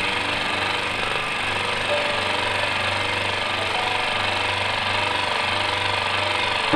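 Tabletop scroll saw running steadily, its reciprocating blade cutting a letter out of acrylic sheet.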